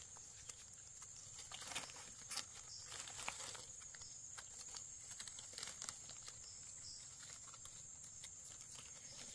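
Faint rustling and crackling of leaf litter and soil, with a few light snaps and ticks, as wild mushrooms are worked loose and picked from the forest floor.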